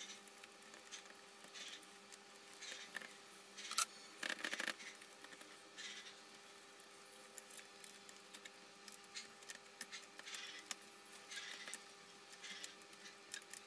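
Faint clicks and rustles of gloved hands handling plastic parts inside an Epson L361 inkjet printer, around the print-head carriage and ink tubes, with a short cluster of louder clicks about four seconds in over a faint steady hum.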